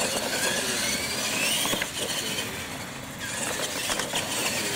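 R/C monster trucks racing on concrete, their motors whining and rising in pitch as they accelerate, with tyre noise and a couple of sharp knocks from the trucks hitting the ground.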